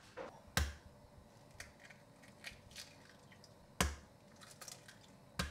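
Eggs being cracked into a glass mixing bowl: three sharp knocks of shell, with smaller ticks and crackles in between.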